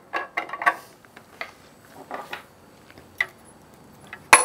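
Light clicks and taps of the flexible-shaft rotary tool's metal fittings being handled, ending near the end in one sharp metallic clink with a brief ring.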